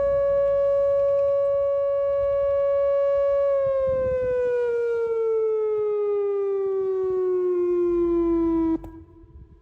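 Whelen WPS-2810 electronic outdoor warning siren sounding a steady tone, then winding down with a smooth falling pitch from about three and a half seconds in. It cuts off abruptly near the end, leaving a faint lingering echo of the tone.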